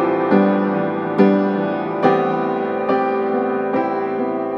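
Slow piano music, with a new note or chord struck about every second.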